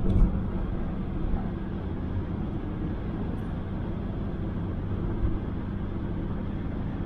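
Toyota Innova's 2.5-litre 2KD four-cylinder turbodiesel and tyres running steadily at high highway speed, heard from inside the cabin as a steady low drone with road noise. A brief knock about a quarter second in.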